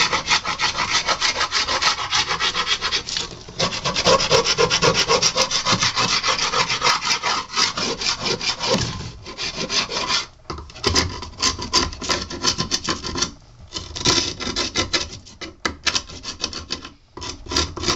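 Hand scraper dragged in rapid strokes over the weathered wood of a beehive super, scraping off old paint, with a few brief pauses.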